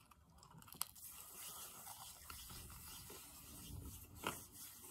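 Faint close-up chewing of a mouthful of french fry, with a sharp click a little under a second in and another brief one near the end.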